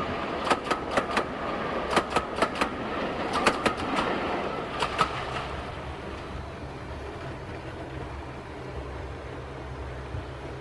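OO-gauge model train running on its track: wheels clicking over the rail joints in quick clusters with a light running hiss and whine as the coaches pass close. The clicks die away about five seconds in, leaving a quieter low steady hum.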